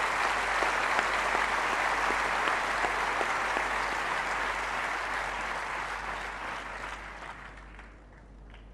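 Audience applauding: a dense patter of many hands clapping that dies away over the last couple of seconds.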